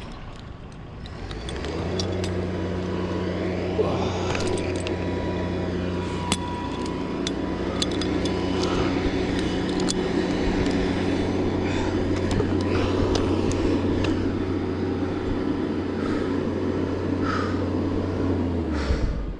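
A small engine running steadily at a constant pitch, starting about a second and a half in and cutting off near the end, with scattered light metallic clicks over it.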